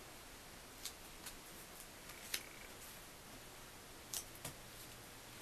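A few faint, sparse ticks and taps of blue tape being pressed onto a paper sheet and the sheet handled on a wooden table, over low room hiss.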